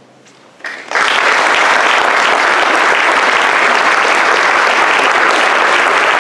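Audience applause: after a brief hush, a few first claps, then about a second in the whole audience breaks into dense, steady clapping.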